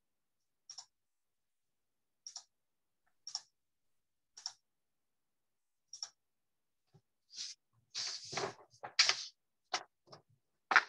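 Clicks at a computer: single sharp clicks about one to one and a half seconds apart, then a quicker run of louder clicks and knocks in the last few seconds.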